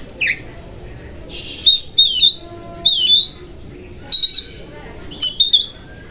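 Oriental magpie-robin (kacer) singing: short phrases of sweeping whistled notes and chirps, broken by brief pauses, with one harsh, raspy note about a second in.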